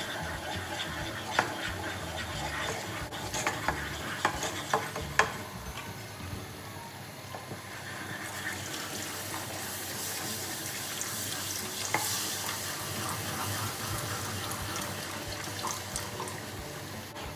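Wooden spoon stirring and scraping a flour-and-fat mixture in a small metal saucepan, with sharp clicks as it knocks the pan. From about eight seconds in, hot water is poured from an electric kettle into the pan, hissing and bubbling as it is stirred in.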